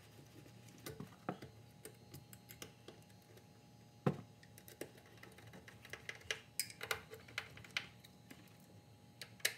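Scattered light clicks and taps as a battery isolator is handled and fastened down onto a carpeted mounting board, with one sharper knock about four seconds in and a quick run of clicks near the end.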